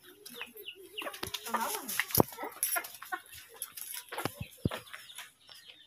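Chickens clucking, with a few short wavering calls in the first two seconds, among scattered clicks and knocks from the phone being handled.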